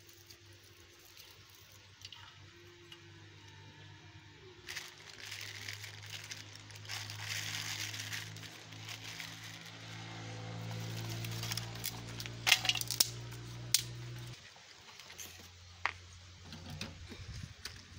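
Rustling and crackling of dry grass kindling being handled in a small metal cooking stove as it is lit, with a few sharp clicks near the end. A steady low hum runs underneath and stops abruptly about three quarters of the way through.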